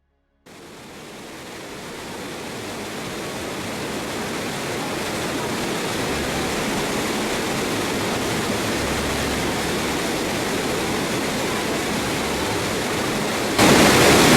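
Waterfall rushing: a steady hiss of falling water that fades in after a brief silence and jumps louder for the last second before cutting off.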